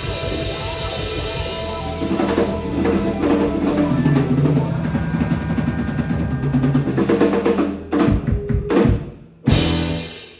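Live rock band closing out a song: a drum roll builds under held chords from about two seconds in, then the band plays several short stop hits and a last full-band hit that is cut off near the end.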